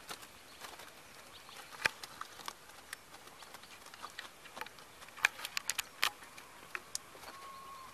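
Irregular sharp taps and patters of fish flapping inside a wet mesh keepnet lifted out of the water, the loudest about two seconds in and a quick run of them around five to six seconds in.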